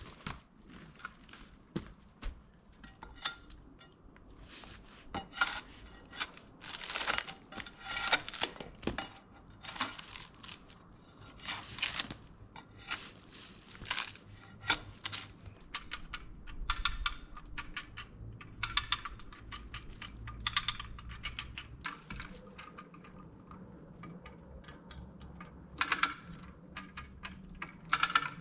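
Hand digging in rocky dirt: irregular sharp clinks and scrapes of a mattock and shovel striking and dragging through soil and stones.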